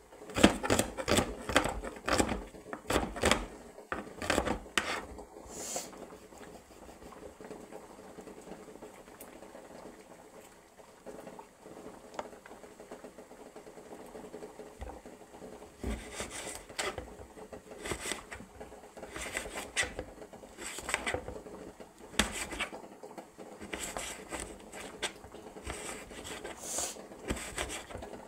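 A broad cleaver-style knife chopping red onions on a chopping board, each stroke a sharp knock. A quick run of chops in the first several seconds, a quieter pause, then scattered chops again from about sixteen seconds in.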